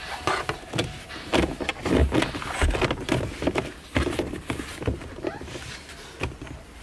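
Handling noise as leather-gloved hands work the rubber shift boot around a manual gear shifter: rustling with irregular knocks and clicks, the loudest about two and two and a half seconds in and again near four seconds.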